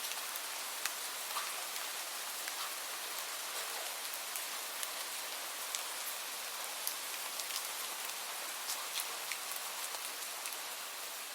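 Light rain falling steadily, a soft even hiss with scattered close drops ticking sharply on a surface.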